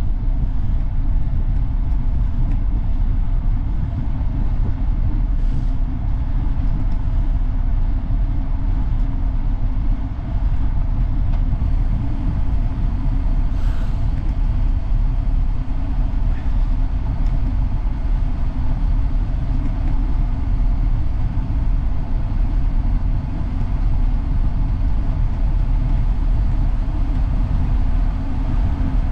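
Steady low rush and rumble of wind on the microphone of a handlebar-mounted camera on a moving road bicycle.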